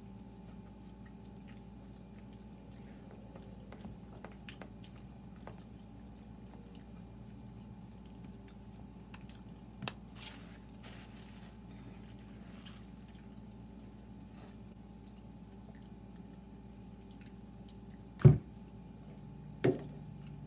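Close-up chewing and wet mouth sounds of people eating pizza and chicken wings, with many small smacking clicks. A brief rustle comes about ten seconds in, and near the end two sharp knocks, the first the loudest.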